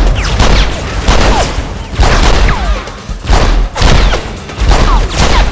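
Loud bursts of automatic gunfire with bullets hitting metal, a burst about every second. Whines falling in pitch follow the bursts, like bullet ricochets. Music plays underneath.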